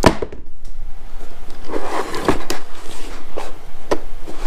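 Knocks, clicks and scrapes of a cardboard box and the Tesla Wall Connector's plastic parts being handled as the charger is lifted out of its packaging, with a rustling scrape about two seconds in.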